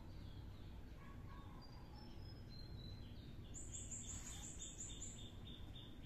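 Faint small birds chirping, with a quick run of repeated high notes starting about three and a half seconds in, over a steady low background hum.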